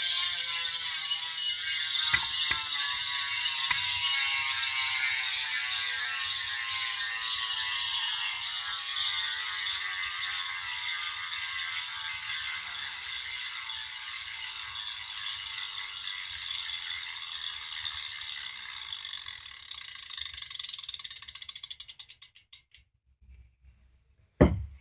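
Colony Wasp cassette hub freewheeling as the rear BMX wheel coasts after one crank: a really loud, rapid pawl clicking that slowly winds down, breaking into separate clicks near the end before stopping. A short thump follows just before the end.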